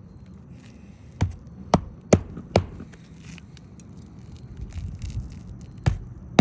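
Hammer driving 1-inch roofing nails through a replacement asphalt shingle: four sharp strikes about half a second apart starting about a second in, then another near the end.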